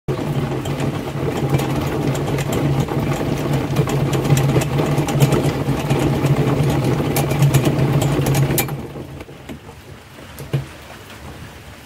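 Homemade bucket honey extractor spinning honeycomb frames in its PVC-pipe cage: a steady mechanical whirr with rattling, which stops about eight and a half seconds in as the spin ends.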